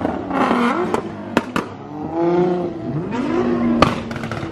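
A performance car's engine revving up and down several times as it drives by, with sharp exhaust pops about a second in and a louder one near the end.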